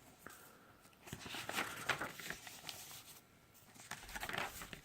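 Pages of a picture book being handled and turned: soft paper rustling in two spells, about a second in and again near the end.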